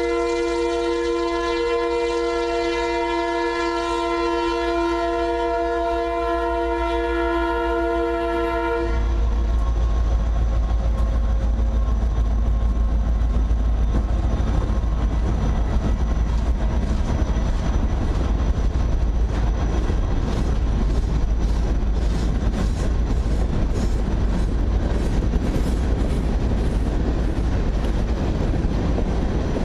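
Diesel freight locomotives, an EMD SD60M leading with an SD60, sounding a long multi-chime horn that cuts off about nine seconds in as the locomotives pass close by. The engines' heavy rumble and the train's wheels on the rail follow, with rattling and clicking over the rails in the second half.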